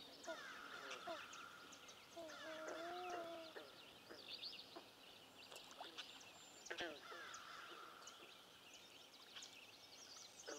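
Faint dawn chorus of songbirds: many overlapping chirps, trills and whistled phrases. About two seconds in, one low, clear call rises, holds and falls over roughly a second.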